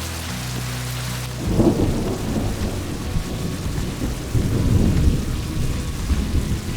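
Heavy rain falling steadily, with a roll of thunder breaking in about a second and a half in and rumbling on for several seconds, swelling again near the middle.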